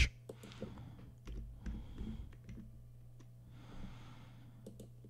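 Scattered light clicks of a computer keyboard and mouse as a place name is typed into a web search box, over a steady low hum.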